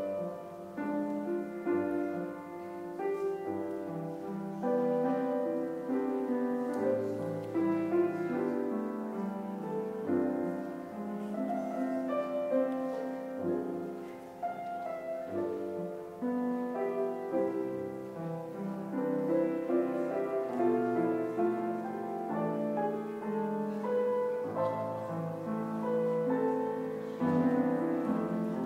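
Piano playing slow instrumental music, with chords held for a second or more each.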